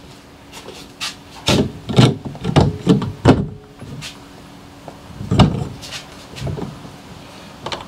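Cardboard box being handled and opened: irregular knocks and rubbing scrapes of cardboard, the loudest knock a little past halfway.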